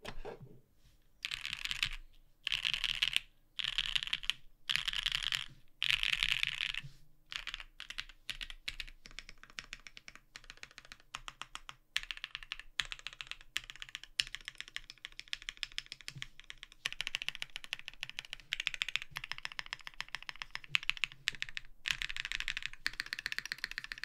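Custom SPV1 southpaw mechanical keyboard being typed on: lubed and filmed BSUN X linear switches under GMK Blurple keycaps, in a top-mount case that has been force-broken against case resonance. About five short bursts of rapid keystrokes in the first seven seconds, then steady typing.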